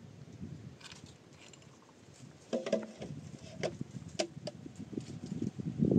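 A few scattered light knocks and clinks of small objects being handled, the loudest cluster about halfway through, over a faint low background.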